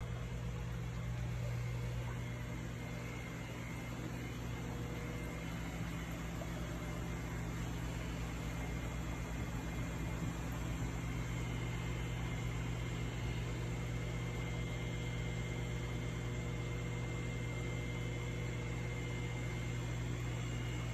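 Steady low hum with an even hiss from aquarium equipment running: water pumps and air bubblers on large fish tanks.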